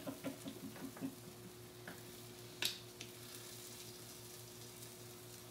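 Sausages sizzling faintly on an electric indoor grill, under a steady low hum. There is a brief chuckle at the start and a single sharp click about halfway through.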